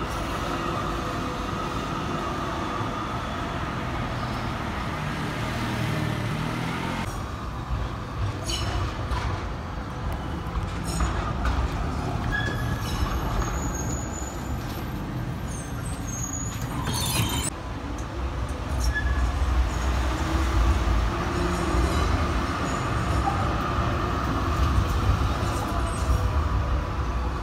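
Melbourne electric trams rolling past close by: a steady low rumble of steel wheels and running gear with a thin motor whine over it. A brief sharp noise cuts through about 17 seconds in.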